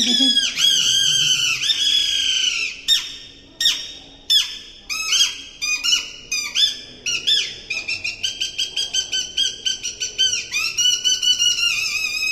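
Rajasthani kathputli puppeteer's squeaky reed-whistle voice (boli) giving the puppet a high, warbling, squealing voice. It starts as long rising-and-falling calls, breaks into separate swooping squeaks, and from about two-thirds of the way in turns to quick chirps several a second.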